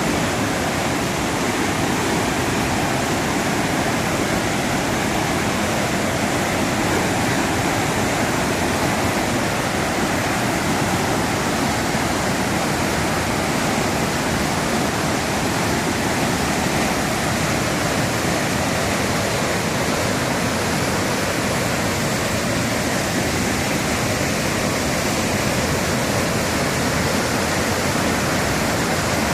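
Waterfall in flood after heavy rain, a large volume of water falling in a steady, loud rush.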